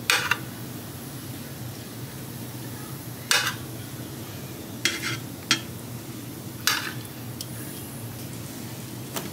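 Metal tongs clinking against a stainless steel pressure-cooker pot as bratwursts are laid in, about five short clinks spread over several seconds above a low steady background.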